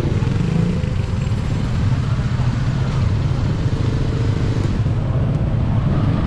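Motorcycle engines running close by in street traffic, a steady low drone with no breaks.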